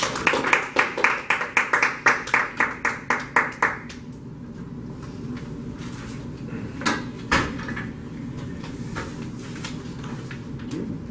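A small audience clapping after a speech, about four or five claps a second, stopping about four seconds in. Then a couple of knocks and light clicks follow as papers are handled on a table.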